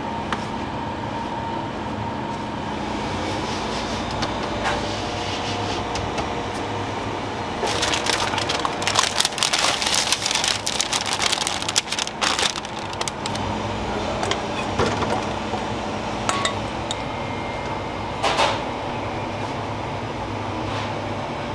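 A steady hum of kitchen machinery throughout. About a third of the way in, parchment paper crackles loudly for a few seconds as it is pressed into a metal cake pan, and a few separate knocks follow.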